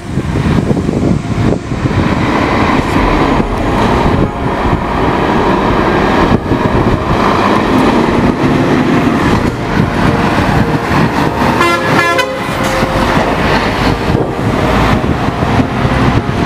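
Scania G410 truck's 13-litre six-cylinder diesel engine pulling the loaded tractor-trailer round a corner and past at close range. About twelve seconds in, a short pitched toot stands out, most like the truck's horn.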